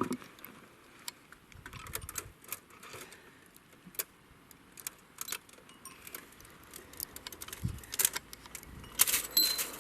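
Scattered metallic clicks and clinks of hand tools, a ratchet and sockets, working the head bolts on a Hemi engine. A dull thump comes a little past halfway, and a quick run of louder clinks comes near the end.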